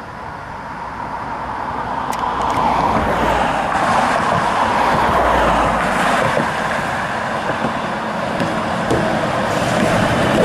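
Road traffic going past close by, cars and an electric trolleybus, the tyre and motor noise growing louder over the first few seconds as they approach, with a deeper rumble as a car passes near the middle.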